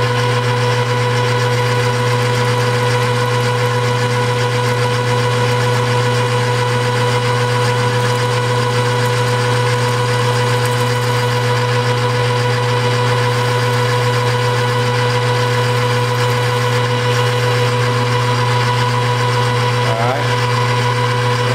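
Jet metal lathe running at a steady speed, a constant hum that holds one pitch throughout, while it takes the final light cut of a taper on the end of a quarter-inch steel pin.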